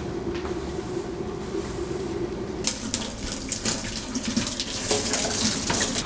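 Kitchen tap running into the sink, starting about three seconds in, over a steady low hum.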